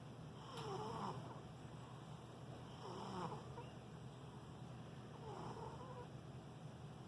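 Sleeping domestic cat snoring faintly, three snores spaced about two and a half seconds apart.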